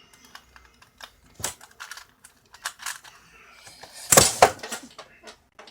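Plastic Rubik's Cube layers being turned by hand, a quick irregular run of clicks, with a louder clatter about four seconds in.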